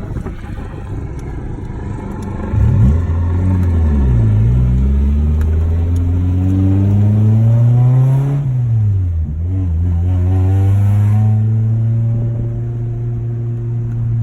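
Car engine revving: it picks up about two and a half seconds in, climbs in pitch for several seconds, drops sharply about nine seconds in, then holds at a steady speed.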